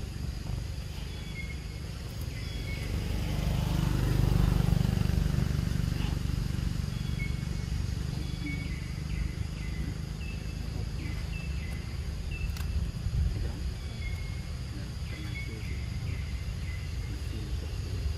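Outdoor ambience dominated by a low rumble of road traffic, swelling about three to five seconds in as a vehicle passes, then settling. Short high chirps repeat throughout.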